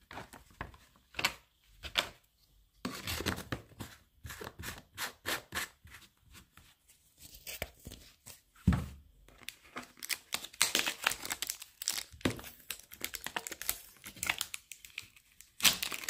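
A plastic shrink-wrap sleeve being torn and peeled off a plastic bottle by hand, in irregular crackling rips that come thicker and faster over the last few seconds.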